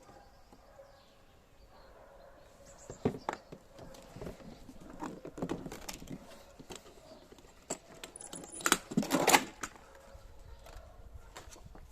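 Handling and unpacking sounds: scattered clicks and knocks with some rustling of packaging, then a louder burst of rattling clicks about nine seconds in.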